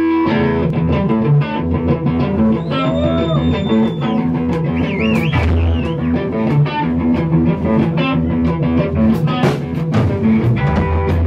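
A rock band playing live: acoustic and electric guitars over drums, steady and loud. A few seconds in, high notes bend and glide up and down over the chords.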